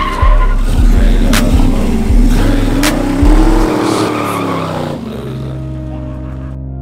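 Pickup truck burnout: tyres skidding on asphalt and the engine revving, rising and falling, mixed with a hip-hop track's heavy bass. About five seconds in the vehicle noise drops away, leaving steady synth tones.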